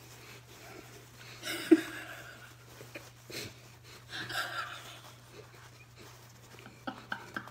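A woman laughing with her mouth full of marshmallows, in a couple of short breathy bursts.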